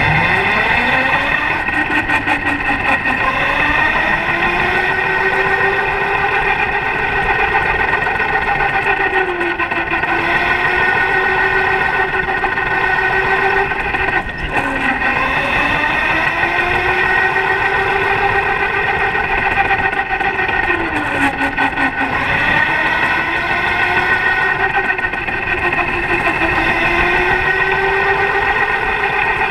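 Electric go-kart's motor whining under acceleration, its pitch climbing as the kart gathers speed and dropping sharply each time it slows for a corner, three times here, over a steady higher hum.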